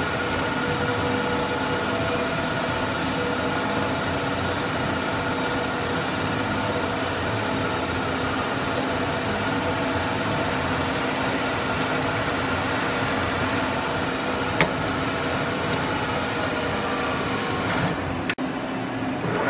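Milling machine spindle running while a drill cuts into a metal block: a steady machine hum with a single click about three-quarters of the way through.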